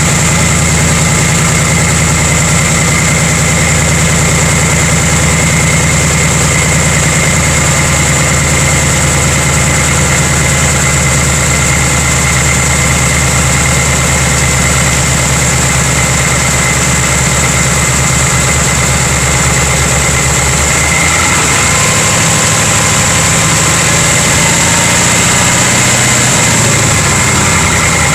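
2018 Mustang GT's 5.0-litre V8 idling after start-up, heard from under the car, with a clanking noise that the owner wonders may be piston slap. About three-quarters of the way through the revs rise gently and settle back to idle.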